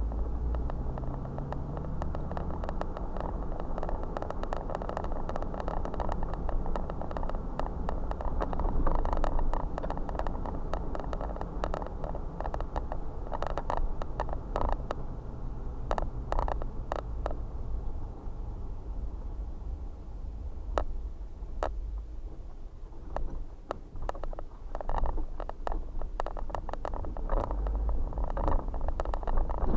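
A car driving slowly, a low engine and tyre rumble with many small clicks and crackles under the wheels. It grows louder and bumpier near the end as the car rolls over railroad tracks.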